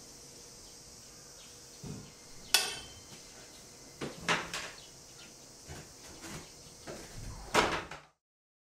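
Scattered light clacks and knocks of laundry and a clothes hanger being handled on a metal bathroom drying rod, with one sharp click about two and a half seconds in, over a faint steady hiss. The sound cuts off suddenly near the end.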